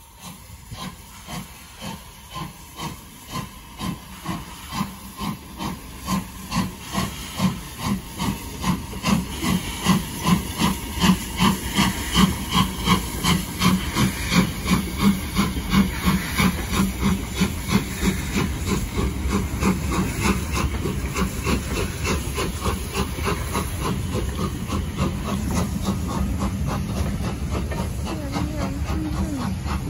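LMS Jubilee class three-cylinder 4-6-0 steam locomotive 45596 Bahamas working a train past with hissing steam, its exhaust chuffing in an even beat of about two a second that grows louder as it draws near. In the last third the beats give way to the steadier rumble of the coaches rolling by.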